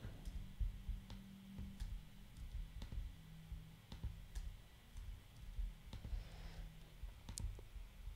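Computer mouse clicking every second or so at irregular intervals, over soft low thumps and a faint steady hum.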